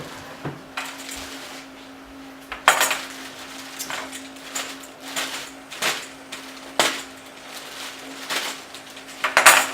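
Unboxing handling noises: a string of about eight sharp knocks and crinkles, irregularly spaced, as a backpack is pulled from its box and packaging, over a faint steady hum.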